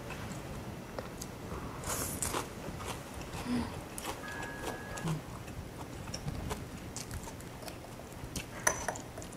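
A person chewing and biting into an eggplant dumpling, close to the microphone, with scattered light clicks.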